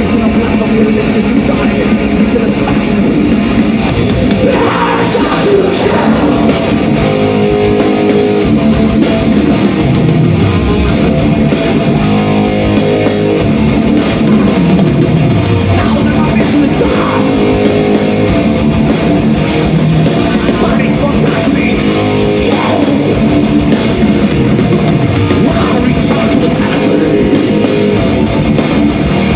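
Thrash metal played live and loud: distorted electric guitars and drums.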